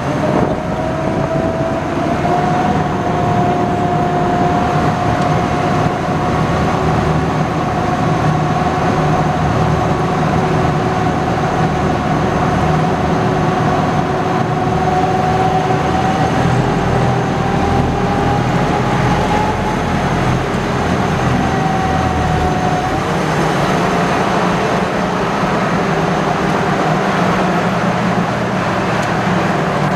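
Engine and drivetrain of a WWII-era DUKW amphibious duck boat running steadily under way, a continuous low rumble with a high whine that slowly climbs and then dips about twenty seconds in.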